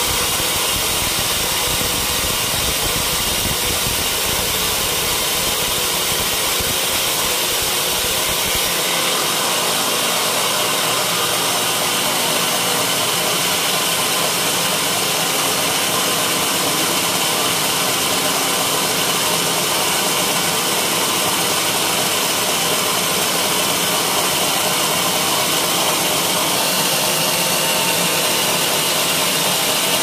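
Band sawmill running, its blade cutting lengthwise through a teak log: a steady, loud noise of motor and blade in the wood. The deep rumble drops away about nine seconds in.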